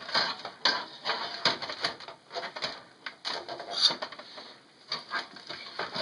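Dynex power supply being pushed and worked into the power-supply bay of a Dell desktop case by hand: irregular knocks, clicks and scrapes of the metal unit against the sheet-metal case and its plastic parts as it is jostled into place.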